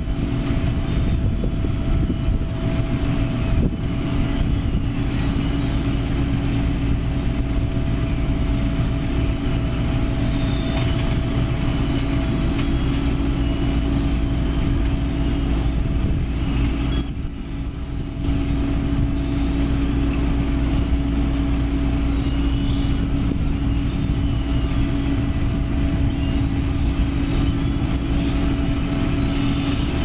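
Heavy diesel engines running steadily: a Mitsubishi Fuso 220 PS dump truck, bed raised, unloading asphalt into a Sumitomo HA60C asphalt paver working right behind it. The steady drone dips briefly about seventeen seconds in.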